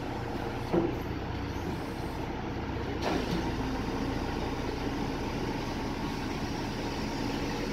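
Tow truck engine running steadily while its wheel-lift holds the chassis dyno, with a short knock about a second in and the running getting a little louder about three seconds in.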